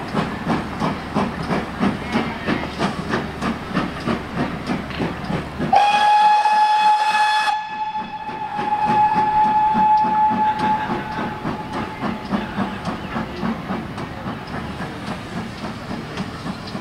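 GWR Manor class 4-6-0 steam locomotive 7827 Lydham Manor working a train, its two-cylinder exhaust beating rhythmically. About six seconds in it gives one long whistle blast lasting about five seconds. The beats carry on, slowly fading as it draws away.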